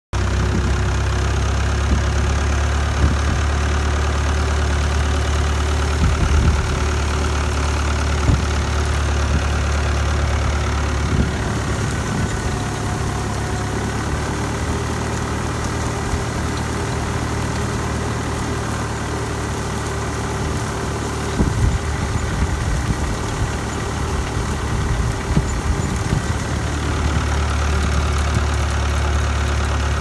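Old tractor's engine running steadily under load as it pulls a crimper-roller through standing rye, heard from the driver's seat close to the exhaust stack. Occasional short knocks sound over the engine.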